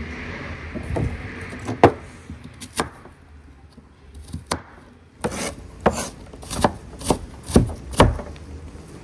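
Knife cutting an apple on a cutting board: a few scattered chops, then a steady run of chops about every half second over the last few seconds.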